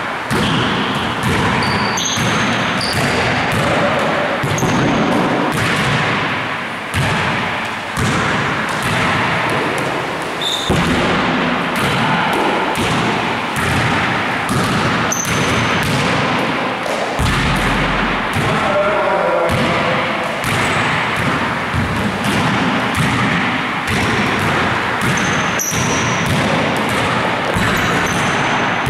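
Basketballs bouncing off a hard floor and being passed and caught: a dense, continuous run of thumps, with occasional short high squeaks.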